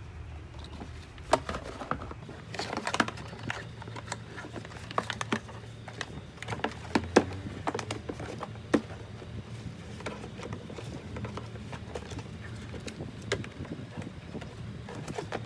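Scattered hard plastic knocks and clicks as a ride-on toy car's moulded plastic seat, with its harness straps and buckles, is handled and fitted into the car body. The knocks come thick and fast for the first few seconds, then thin out, over a low steady hum.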